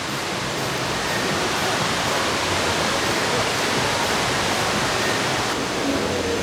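Waterfall's steady rush of falling water, a dense even noise filling all pitches.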